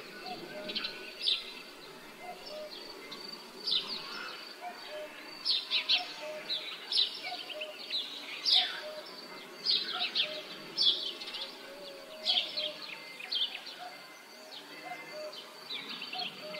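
Outdoor rural ambience of small birds chirping: many quick, sharp calls that drop in pitch, thickest through the middle. Underneath is a soft, even background hush.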